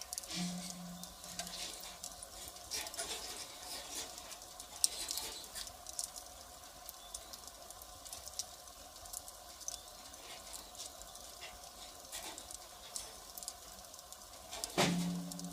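Firewood fire crackling, with irregular small pops and ticks over a soft steady hiss, and one louder crack near the end.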